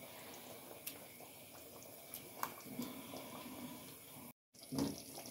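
Faint stirring of chicken pieces in a liquid curry sauce with a plastic slotted spatula in a dark pot, with a few light ticks of the spatula against the pot.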